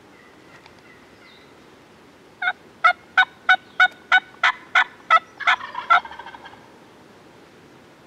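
Turkey yelping: a run of about eleven loud, evenly spaced notes, about three a second, trailing off in a quicker, softer rattle.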